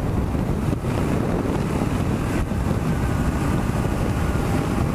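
Steady wind rush on the microphone of a camera mounted on a Kawasaki KLR650 riding along a paved road at speed, with the bike's single-cylinder engine running underneath.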